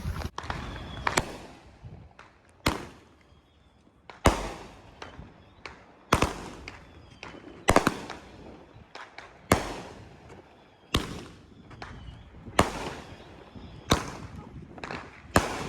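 Consumer firework cake firing shot after shot, a sharp bang about every one and a half seconds, each with a short fading tail and smaller crackling pops in between.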